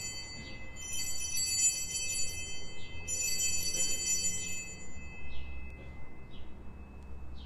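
Altar bells (Sanctus bells) rung at the elevation of the host, in three shakes about two seconds apart, each a cluster of clear high ringing tones that lingers and fades, the last dying away about five seconds in. A few faint bird chirps follow.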